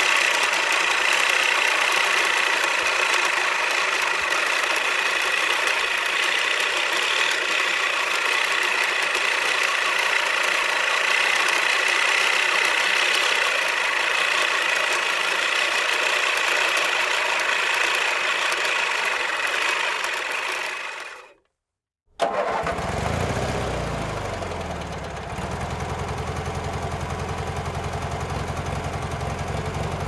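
Lawnmower engine running steadily with a high, buzzing tone, fading out about two-thirds of the way through. After a brief silence, another lawnmower engine comes in abruptly, its pitch sliding down over a second or two before it settles into a steady, lower, even-paced run.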